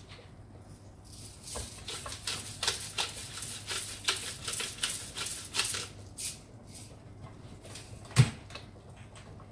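A hand-twisted pepper grinder cranked over a pot, giving a run of quick rasping clicks for about five seconds. A single sharp knock follows near the end and is the loudest sound.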